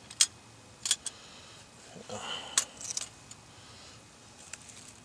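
Small folding sheet-metal camp stove being unfolded and set down: a few light metal clicks and clinks, with a short rustle about two seconds in.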